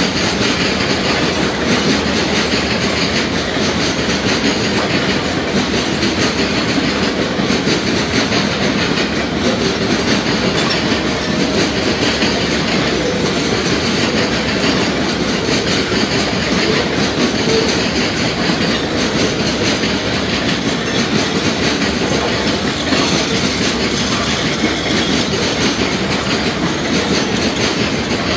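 A freight train's covered hopper cars rolling past: a steady, unbroken noise of steel wheels running over the rails.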